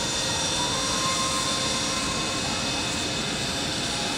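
Twin rear-mounted turbofan engines of a JASDF U-125 (Honeywell TFE731s) running at taxi power, a steady jet rush with a high whine as the aircraft rolls slowly along the taxiway.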